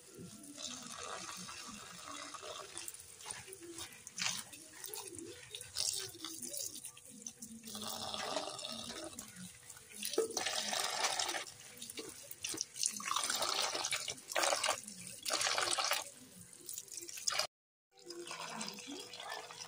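Running water splashing in several bursts of one to two seconds with short pauses between, the kind heard at a kitchen tap.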